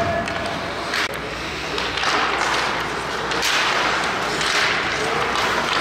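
Ice hockey play in an arena: skate blades scraping the ice in repeated swelling hisses, with a sharp knock about a second in.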